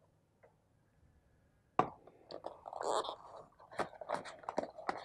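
White cardboard phone box and its insert being handled: a sharp tap about two seconds in, then a run of light clicks, scrapes and rustles.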